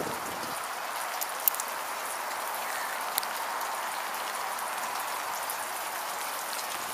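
Steady hiss of rain falling on wet pavement, with a few sharp ticks of drops.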